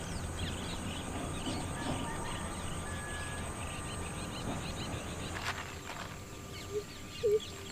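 Outdoor ambience with many small birds chirping throughout over a low steady rumble, and a couple of short low calls near the end.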